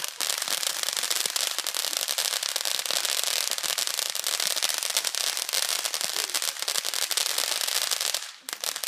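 Ground fountain firework spraying sparks with a dense, continuous crackle of rapid sharp pops. The crackle breaks off for a moment near the end, then starts again.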